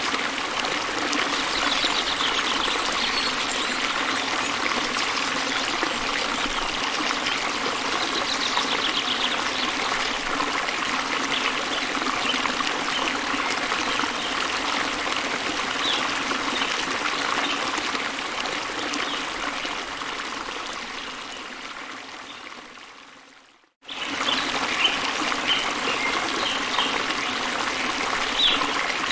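Small waterfall splashing and trickling steadily, with a few short bird chirps. The water sound fades out about three-quarters of the way through, then cuts straight back in.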